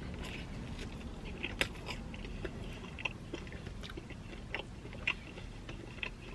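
Close-miked chewing of pepperoni pizza, with irregular small wet clicks and smacks of the mouth over a steady low hum.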